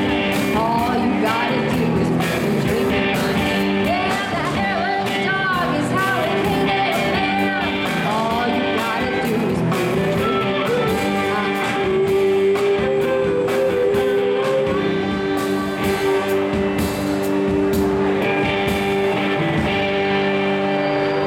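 Live amplified band playing a blues-rock song: a woman singing over electric guitar, drum kit and fiddle. The beat is steady, with a long held note about twelve seconds in.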